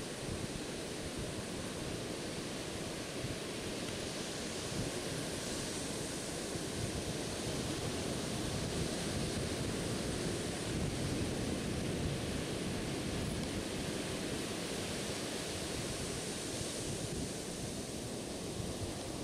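Sea surf breaking and washing up a sandy beach: a steady rush of waves, with some wind on the microphone.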